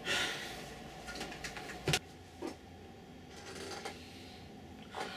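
Quiet handling noises: a rustle, a few small clicks and one sharp knock about two seconds in, then softer rustling.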